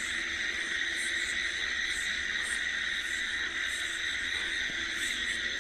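Night chorus of insects such as crickets, a steady high-pitched trilling, with frogs croaking faintly underneath.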